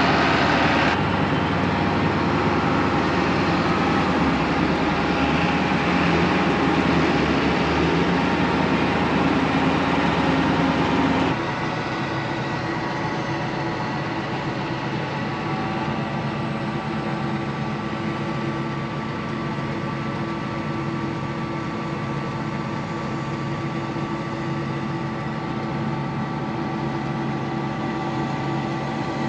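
Heavy diesel engine running steadily as a John Deere four-wheel-drive tractor works a chopped-corn silage pile. The sound changes abruptly about a second in and again about eleven seconds in, and after that it is quieter with a steady hum.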